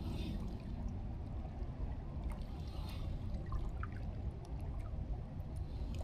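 Steady low rush of river water with faint, scattered ticks from a spinning reel being cranked to retrieve a lure.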